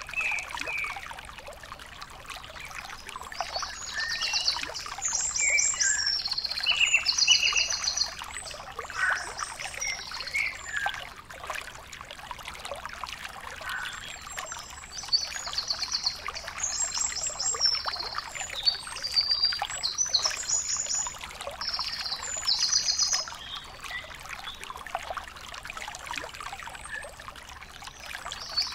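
Outdoor ambience: a steady crackling hiss, over which short, rapid, high-pitched trills and chirps repeat in two spells with a lull between them.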